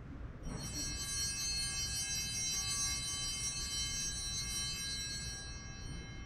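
Altar bells rung at the elevation of the chalice after the consecration: a bright ringing of several high tones that starts about half a second in and dies away over about five seconds.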